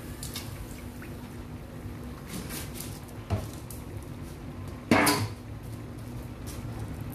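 Kitchenware being handled: a light knock about three seconds in, then a loud clank of dishes or pots about five seconds in, over a steady low hum.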